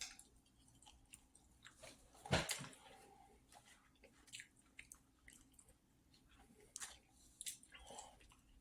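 A person chewing and biting food close to the microphone: soft, scattered mouth clicks, with one louder bite about two seconds in.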